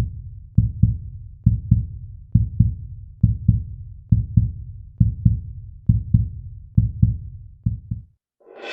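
Heartbeat sound effect: a low double thump, lub-dub, repeating a little faster than once a second, nine beats in all, stopping about 8 seconds in. Music swells in at the very end.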